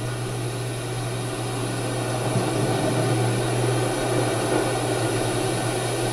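Steady low hum under an even hiss, with no distinct strokes or clicks.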